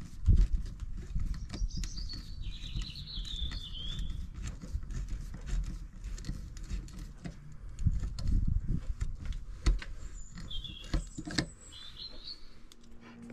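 Small birds chirping in short phrases, about two seconds in and again near the end, over an uneven low rumble and scattered light clicks and taps.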